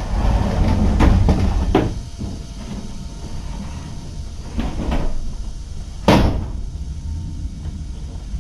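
A run of knocks and clunks from things being handled and shut, the loudest about six seconds in, over a steady low rumble.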